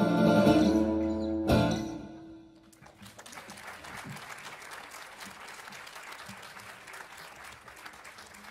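Live acoustic guitar, flute and saxophone ending a song on a last chord about a second and a half in, which rings out and fades. Then audience applause, quieter than the music.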